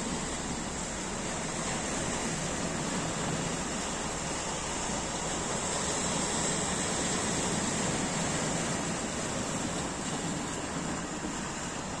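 Small sea waves washing and breaking against a rocky shore, a steady rushing wash that swells a little around the middle and eases toward the end.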